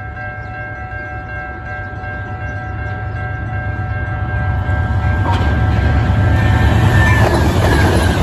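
Amtrak GE P42DC diesel locomotives approaching at speed with the horn held in one long chord, its pitch dropping as the lead unit passes near the end. Under it, the rumble of engines and wheels grows louder, and a rush of passing train joins about five seconds in.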